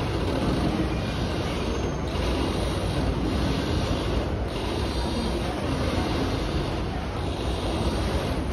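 Orange flag express river boat under way: a steady engine drone with the wake churning and wind buffeting the microphone.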